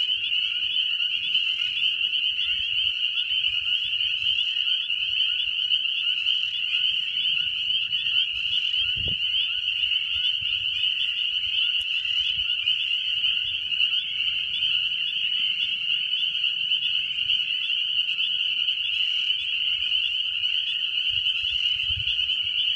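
Dense, steady spring chorus of many frogs calling at once: a continuous high, shrill wall of overlapping calls.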